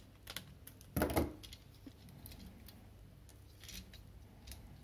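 Small scissors clicking and snipping through the rubber transport ties on a plastic toy figure, with light handling of plastic parts; a louder knock about a second in.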